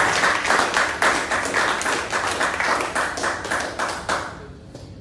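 A small group of people applauding with dense, quick hand claps that die away about four seconds in.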